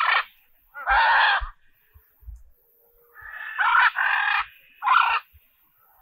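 Blue-and-yellow macaw squawking: a string of harsh, raspy squawks, with short ones at the start and about a second in, a longer drawn-out squawk around the middle, and another short one near the end.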